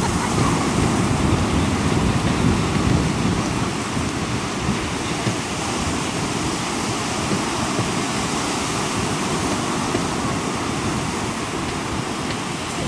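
Surf breaking and washing up the beach in a steady rush, with wind rumbling on the microphone.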